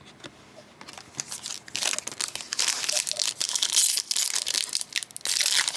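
Plastic foil trading-card pack wrapper crinkling and tearing open, with rapid crackles that start about a second in and come in bursts.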